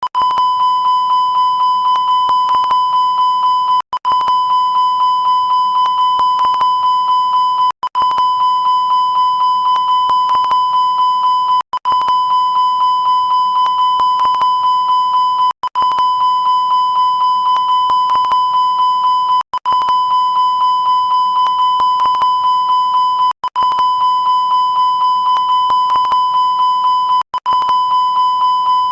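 Electronic alert tone, a homemade airline-style alarm sound effect: a steady high beep with a fast slight pulsing, looping with a brief break about every four seconds.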